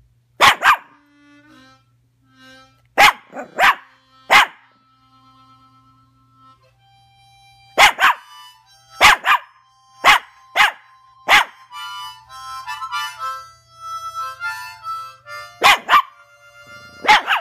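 A small puppy barking sharply at a harmonica, about a dozen short barks, often in quick pairs, while the harmonica plays held notes and bursts into busier chords about twelve seconds in.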